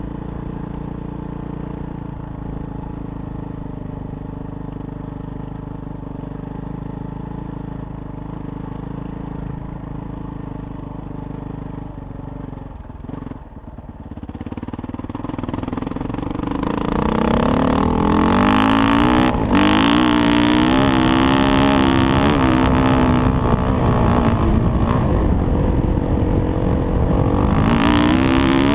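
Motocross dirt bike engine heard from the rider's helmet, running steadily at low speed, then opening up about halfway through and getting louder, its pitch rising and falling as the rider works the throttle and gears.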